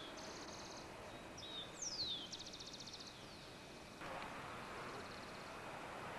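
A small songbird singing twice: each song a high falling whistle followed by a fast buzzy trill. A faint steady hiss lies underneath and grows louder about two-thirds of the way through.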